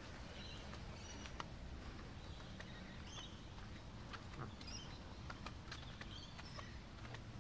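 Quiet outdoor street ambience: a steady low rumble with scattered faint high bird chirps and a few light, irregular clicks.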